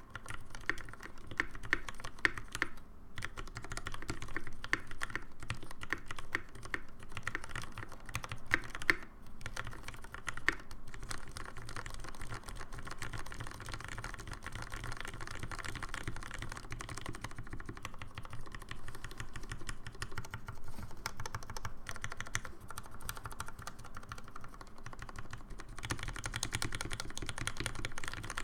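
Fast, continuous typing on a mechanical keyboard with 64 g Cherry MX Vintage Black linear switches and ePBT keycaps: a dense run of keystrokes, broken only by brief pauses about three and nine seconds in.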